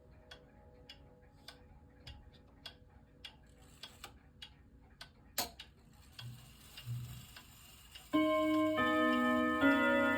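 1930s ODO 36 wall clock's movement ticking steadily, with a sharp click about five seconds in as the mechanism trips. Near the end the hour strike begins: a loud chord rung on four steel chime rods, then a second chord about a second and a half later, both ringing on.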